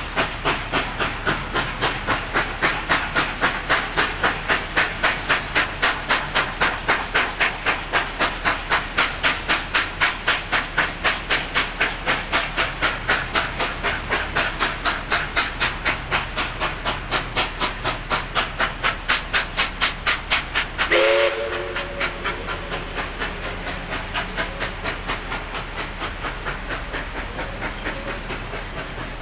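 Baldwin-built NSW 59 class 2-8-2 steam locomotive 5910 working a train, its exhaust beating steadily at about three chuffs a second. About two-thirds of the way through it gives a short whistle blast, and after that the chuffing grows fainter as the engine draws away.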